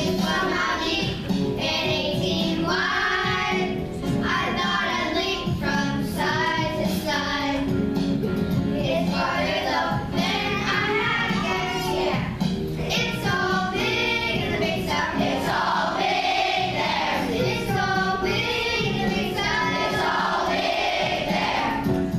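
Children's choir singing a song together over instrumental accompaniment.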